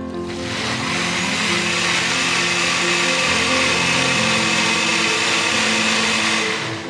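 NutriBullet personal blender motor running at full speed, its cup held pressed onto the base, blending thick peri-peri chilli sauce a second time to make it smoother. The motor starts just after the beginning and cuts off near the end.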